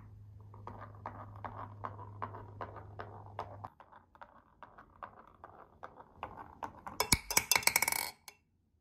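Glass marble rolling down a zigzag wooden wave-slope track, clicking against the groove walls at each bend. About seven seconds in it drops into a plastic cup and bounces and rattles there for about a second, the loudest part.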